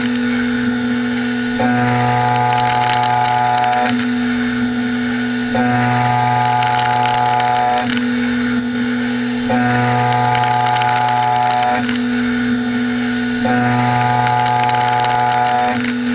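Solid carbide end mill (CoroMill Plura HFSM) side-milling a metal block in a CNC machining centre. It makes a steady pitched cutting tone over a high hiss. The tone alternates between stronger and weaker every couple of seconds in a cycle of about four seconds, as the WaveForm toolpath takes the cutter through its passes.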